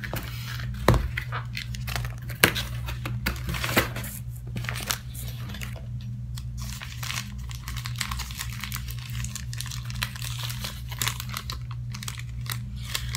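Brown kraft-paper packet crinkling and tearing as it is unwrapped by hand: irregular rustles and crackles throughout, over a steady low hum.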